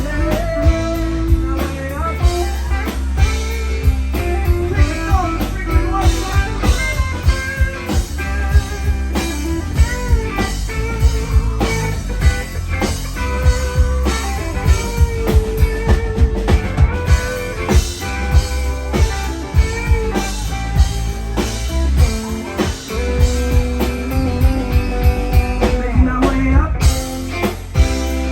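A live rock band playing an instrumental break: a lead electric guitar solo over bass and drums.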